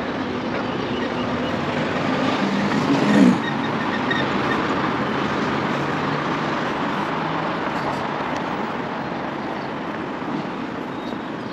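Road traffic passing on a city street, a steady rush of tyres and motors; one vehicle passes close, loudest about three seconds in.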